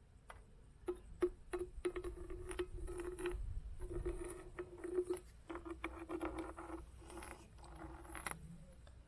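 Stones clicking and clattering against one another in quick, dense clusters of clicks, over a low rumble. The clatter dies away near the end.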